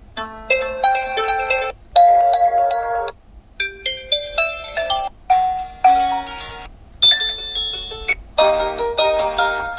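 Realme GT2 Pro default alarm tone: short melodic phrases of clear electronic notes, one after another about every second and a half with brief gaps between.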